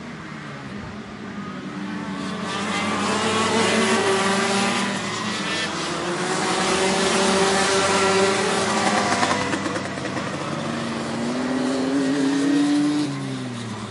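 High-revving racing engines passing one after another, their pitch rising and falling as each speeds up and goes by, with a pass that falls away near the end.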